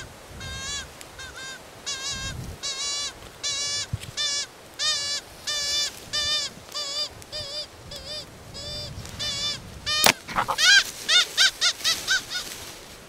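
Hand-blown fox whistle (predator call) squealing out a rapid series of short, wavering, rabbit-like distress cries, about two to three a second, to lure foxes in. About ten seconds in there is one sharp snap, and the squeals that follow are louder.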